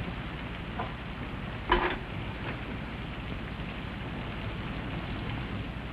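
Steady rain on a roof: an even hiss, with one short sharp sound about two seconds in.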